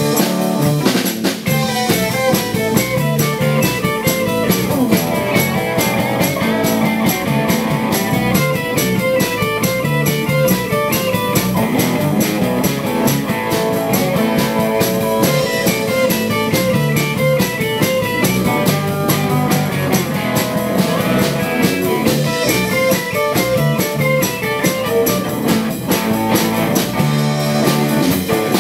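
Live rock band playing, with electric and acoustic guitars, bass guitar and drum kit over a steady beat.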